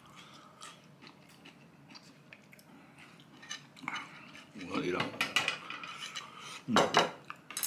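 Fairly quiet at first, then short vocal sounds from a man a little past halfway, the loudest just before the end, and a few clinks of cutlery against a dish near the end.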